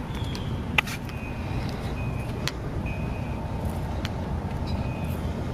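Outdoor street ambience: a steady low rumble, with short high-pitched chirps repeating at uneven intervals and a few sharp clicks, the loudest about a second in.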